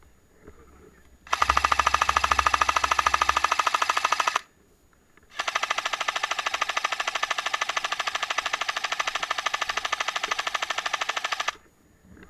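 Airsoft rifle firing on full auto in two long bursts of rapid, even shots: the first about three seconds long starting just over a second in, the second about six seconds long.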